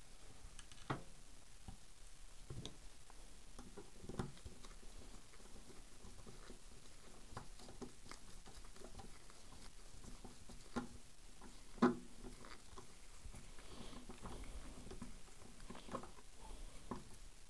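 Faint handling sounds of a small screw being put in and hand-tightened on a Henry H001 lever-action rifle: light scattered scratches and clicks, with a few sharper metal ticks, the sharpest about twelve seconds in.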